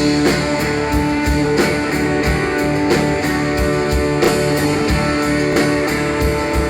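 Live country-rock band playing an instrumental break between verses: guitars over a steady drum beat.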